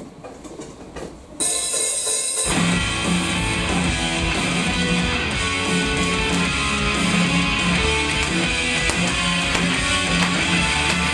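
Low room murmur, then about a second and a half in, guitar-driven pop-rock music starts abruptly, with the drums and bass coming in about a second later and a steady beat carrying on.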